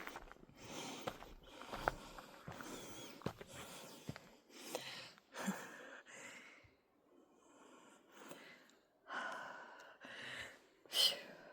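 A person walking on a forest trail: footsteps and breathing close to the microphone, in uneven swells with small knocks.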